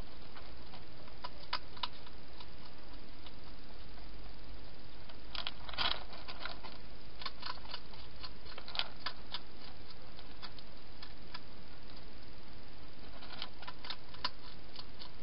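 Wild hedgehog eating inside a plastic feeding box: irregular crunching and smacking clicks of chewing come in a few bunches, over a steady background hiss.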